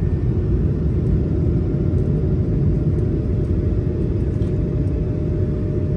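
A jet airliner's engines and rolling rumble heard from inside the cabin as it moves down the runway. A steady deep rumble with a faint steady whine over it.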